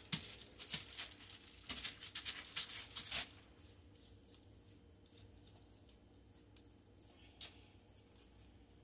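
A quick run of short rustling, scraping handling strokes for about three seconds, then quiet apart from one more brief stroke near the end.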